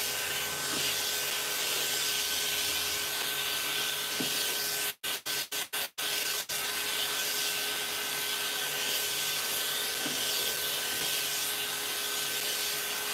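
Electric pet clippers fitted with a vacuum hose, running with a steady hiss and a faint high whine while trimming a Persian cat's long fur. The sound drops out sharply several times about five to six seconds in.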